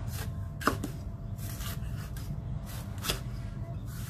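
Kitchen knife slicing a red bell pepper into strips on a wooden cutting board: a series of irregular cuts, the blade tapping the board, with two sharper knocks, one a little under a second in and one about three seconds in.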